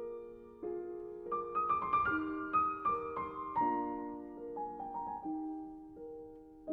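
Piano music: low chords held under a slow melody of single notes, each note ringing and fading.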